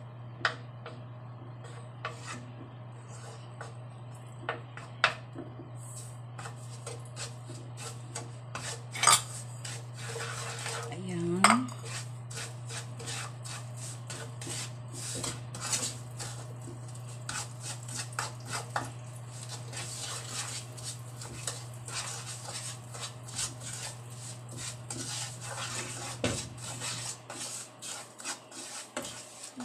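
Wooden spatula stirring and scraping butter and sugar around a non-stick frying pan: irregular taps and scrapes with a few sharper knocks against the pan, the stirring growing busier about halfway through. A steady low hum runs underneath.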